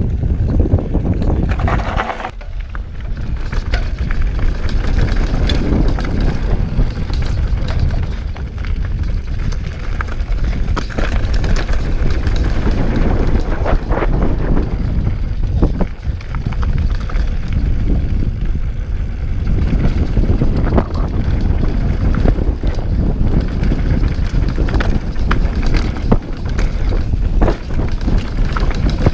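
Wind rushing over an action camera's microphone as a Scott Voltage 720 mountain bike descends a dirt trail, with the tyres rolling over dirt and rocks and the bike rattling in frequent short knocks.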